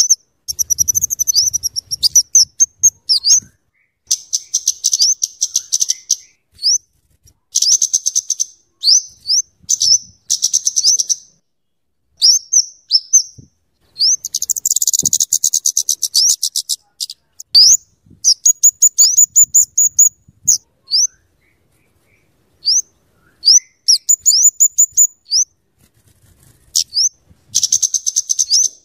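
Flowerpecker (kemade, cabe-cabean) calling: very high, thin, sharp upswept chip notes mixed with bursts of fast ticking chatter, in repeated phrases with short pauses between.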